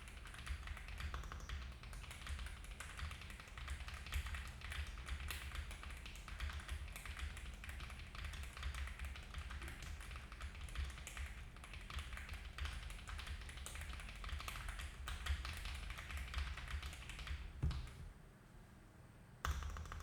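Fast, continuous typing on a Zoom75 mechanical keyboard with stock Moondrop Lunalight switches, a polycarbonate plate and GMK keycaps: dense key clacks with a marbly tone. The typing stops for about a second and a half near the end, then starts again.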